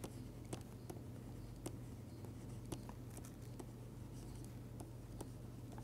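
Faint, irregular clicks and taps of a stylus writing on a tablet screen, over a low steady hum.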